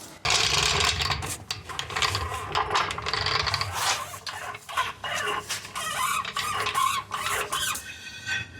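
Rapid, irregular mechanical clicking and scraping of metal tools or mechanism being worked on the car.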